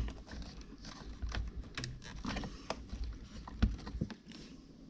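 Scattered light clicks and knocks, irregular and a few a second, from hands working at the plastic latch of a refrigerator ice maker assembly.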